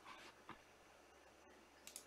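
Near silence: faint room tone, with a soft click about half a second in and a sharp double click near the end.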